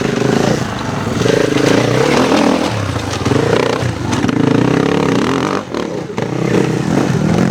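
Enduro motorcycle engine revving hard and unevenly, its pitch rising and falling with repeated bursts of throttle.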